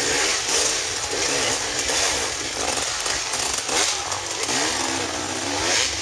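Dirt bike engines revving, the pitch rising and falling again and again as the throttle is worked.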